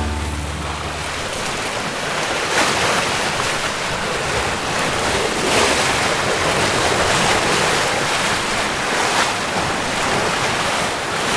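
Bow wave of a C&C 39 sailboat under sail rushing and splashing along the hull, with wind noise on the microphone. The wash swells in surges every few seconds as the bow meets the waves.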